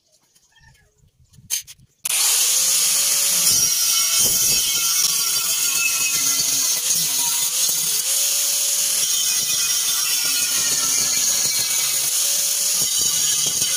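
Makita angle grinder with a cutting disc biting into the steel wall of an old gas bottle, a loud steady grinding screech that starts abruptly about two seconds in and runs on with small wavers in pitch as the disc works along the cut. Before it, a few faint light taps.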